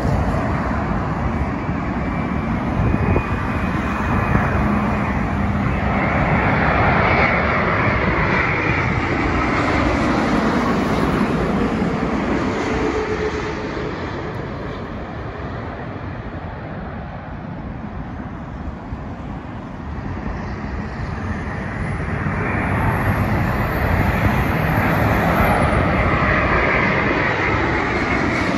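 Jet airliners on final approach passing low overhead, their engine noise swelling twice, once early and again near the end as a Boeing 787 comes over. In the second pass a faint high whine climbs and then drops abruptly as the jet passes, over the hum of road traffic.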